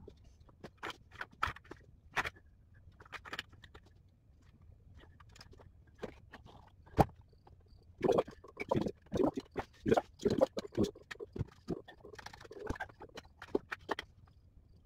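Scattered knocks, clicks and scrapes of a steel motorcycle jack and wooden blocks being handled and set in place on a concrete floor. There is one sharp knock about seven seconds in, then a busier run of knocks and scrapes for several seconds.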